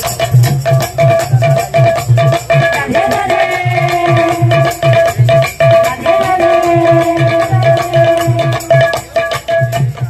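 Odia kirtan music: a barrel drum struck in a quick, steady rhythm with brass hand cymbals clashing, over a held drone note and a wavering melodic line.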